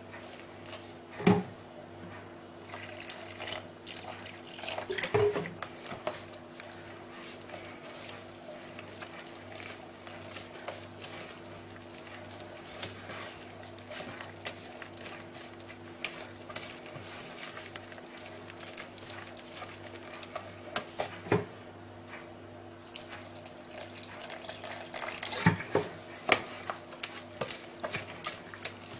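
A spoon stirring flour and water into a thick, wet batter in a plastic tub, with scattered knocks and scrapes against the tub's sides, the loudest about a second in, around five seconds in, and in a cluster near the end.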